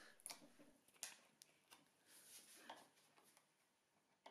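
Near silence broken by a few faint clicks and light scrapes of steel pliers picking at the edge of a polyethylene board.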